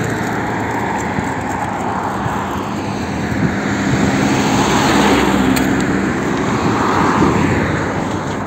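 Road traffic on a wide city street: vehicle noise that swells in the middle and eases off near the end.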